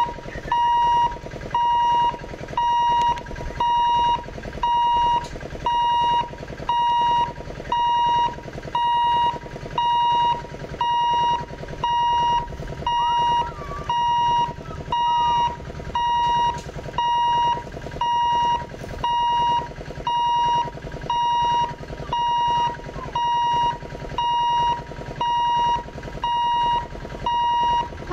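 Level-crossing warning hooter beeping steadily, one pitched electronic beep about once a second, the warning that the gate is closed for an approaching train.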